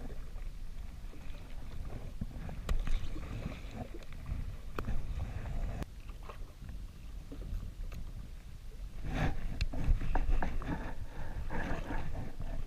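Choppy sea water lapping against the hull of a drifting Sea-Doo jet ski, with wind rumbling on the microphone. A few small clicks and knocks come from handling the fish and tackle, and the water and wind noise swells louder about nine seconds in.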